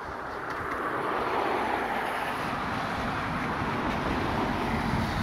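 Steady rushing noise of road traffic on a wet street, swelling over the first second and then holding.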